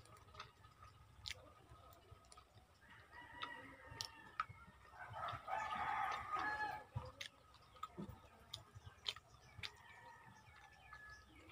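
A rooster crowing at a distance, its longest and loudest call about midway, over the faint clicks and smacks of someone chewing food eaten by hand.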